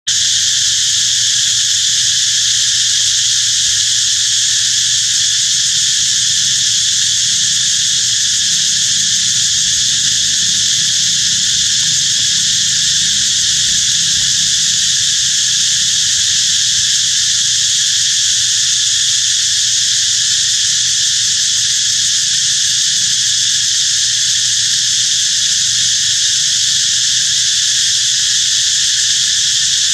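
A loud, steady chorus of insects: a shrill, high buzz that holds without a break.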